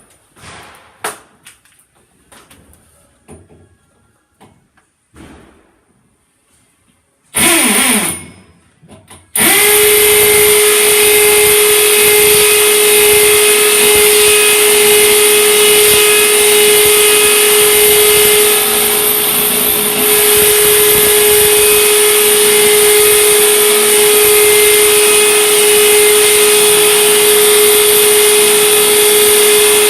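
Light handling clicks, then a power drill is briefly triggered about seven seconds in and, after a short pause, runs steadily at constant speed with a high whine for the rest, drilling a hole.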